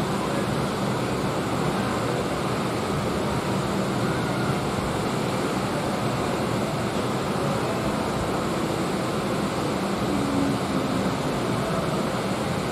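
Steady ambient noise, an even rush with no distinct events, with faint steady hums under it.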